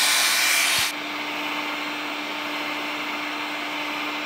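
Heat gun blowing hot air steadily over fiberglass cloth to burn the paraffin out of the weave. About a second in the blowing drops in level and then holds steady, with a faint constant hum under it.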